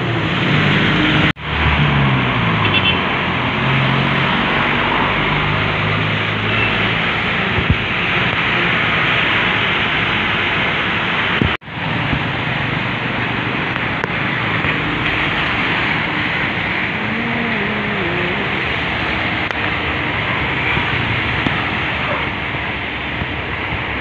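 Wet-road street traffic in the rain: a heavy truck's diesel engine runs as it pulls past in the first few seconds, its pitch stepping up and down, over a steady hiss of rain and tyres. The sound cuts out abruptly twice for a moment.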